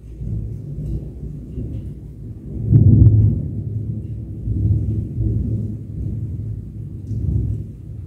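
Thunder rolling: a long low rumble that surges loudest about three seconds in, then keeps rolling in smaller swells.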